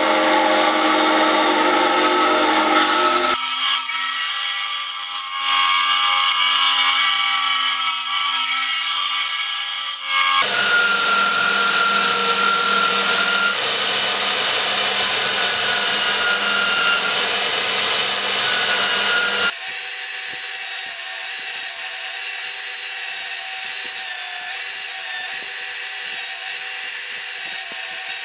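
A bandsaw cutting through a turned wooden blank, then a belt sander running with a wooden piece pressed against its belt, in several spliced clips whose sound changes abruptly at each cut.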